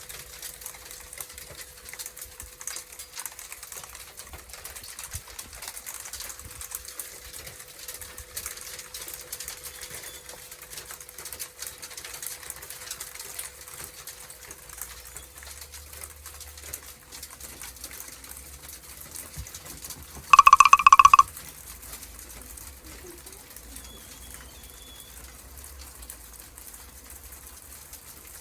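Hail pellets pattering on a balcony, heard as a steady spray of fine clicks and ticks. About two-thirds of the way through, a loud, pulsing high tone sounds for about a second.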